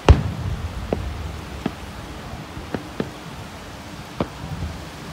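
Fireworks going off: one loud boom just after the start with a low rumble trailing it, then about five lighter, sharp bangs spaced out over the next few seconds.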